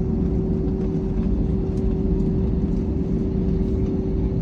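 Cabin noise of an Airbus A321-211 taxiing with its engines at idle: a steady low rumble with a constant hum held throughout.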